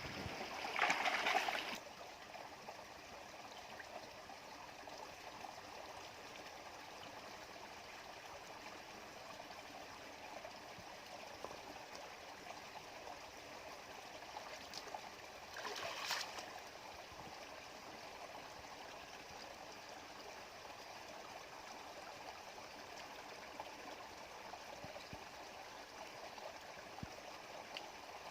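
Stream water running steadily over stones, with two brief louder disturbances in the water, one about a second in and one past the middle.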